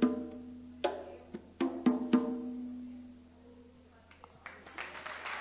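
An acoustic worship band's closing chords, sharp struck hits with percussion, the last chord ringing out and fading. About a second before the end, applause starts to build.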